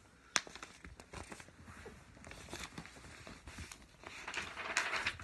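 Paper rustling and crinkling as a picture book is handled and its pages turned, with scattered small taps and clicks; a sharp tap a little under half a second in, and a louder rustle about four seconds in.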